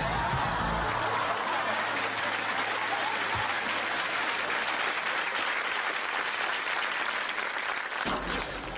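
Audience applauding steadily, dying down about eight seconds in.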